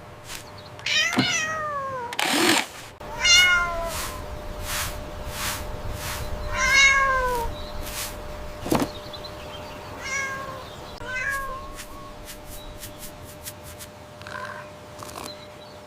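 A cat meowing about five times, each meow falling in pitch, with a scatter of short sharp clicks or taps between the calls.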